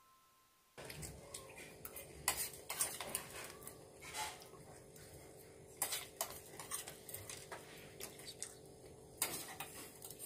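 Spoons clinking and scraping against steel bowls and plates as two people eat, in scattered irregular clicks starting about a second in over a faint steady hum.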